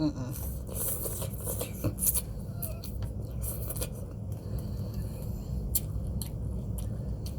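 Eating at a bowl of takeout pho: short irregular clicks and scrapes of a utensil against the container, over a steady low hum.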